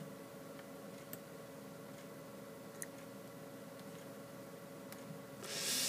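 Quiet room tone with a steady faint hum, a few faint computer mouse clicks, and a short hiss near the end.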